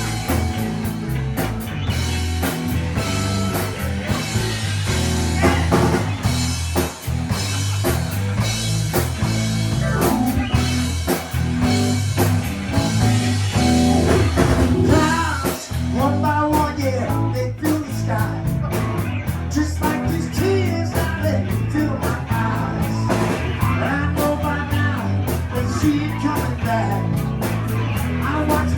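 A live blues-rock band playing, with electric guitar over a steady drum-kit beat; the guitar lines bend up and down through the middle and latter part.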